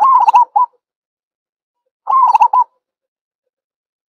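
Zebra dove cooing: two short phrases of quick staccato coos, about two seconds apart.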